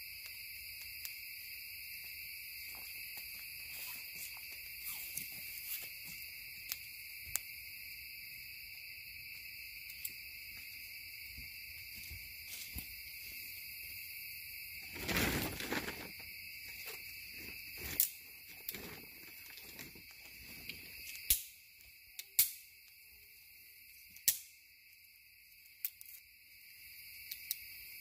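Campfire fed with magnesium shavings burning, crackling with sharp pops that come more often and louder in the second half, with a rush of noise about a second long about halfway through. Crickets chirr steadily behind it.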